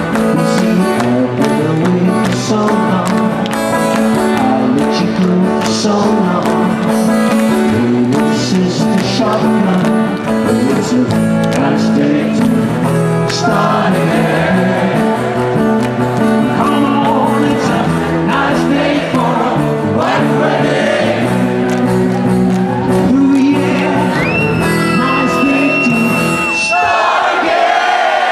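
Live rock band playing loudly: drums, guitar and keyboards under a male lead singer. About a second before the end the band cuts out.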